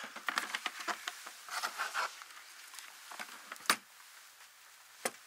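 Rustling and small clicks of something being handled, dense for about two seconds and then dying away, with two sharp single clicks later on.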